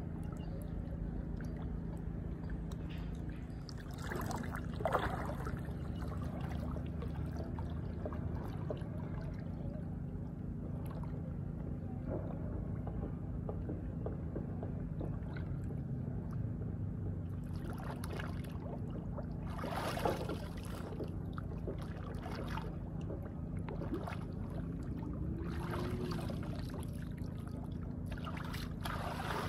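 Water sloshing and splashing close to the microphone over a steady low hum, with louder splashes about four seconds in, around two-thirds of the way through, and near the end.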